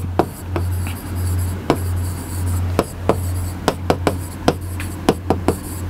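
Stylus writing on an interactive whiteboard screen: a run of sharp taps and short scratchy strokes, over a steady low hum.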